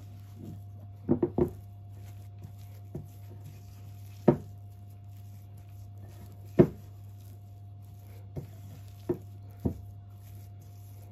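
Silicone spatula working stiff butter-and-flour dough in a glass bowl: soft scraping and squishing, with a few irregular sharp knocks of the spatula against the glass, the loudest about four and six and a half seconds in. A steady low hum runs underneath.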